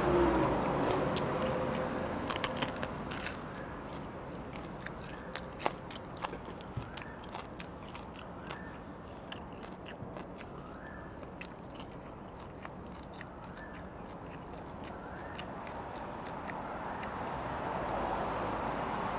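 Close-up eating sounds of crispy pork knuckle: biting and chewing with sharp crackling crunches, thickest in the first half, then quieter chewing. A faint short chirp repeats about once a second in the background.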